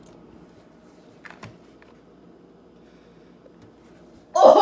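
Quiet room hum with a couple of faint clicks about a second and a half in, then a young woman's sudden loud "Oh!" of disgust near the end as she tastes the food in her mouth.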